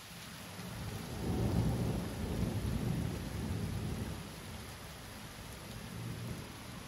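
Thunder rumbling: a low roll that builds about a second in and fades away over a few seconds, over a steady hiss of rain.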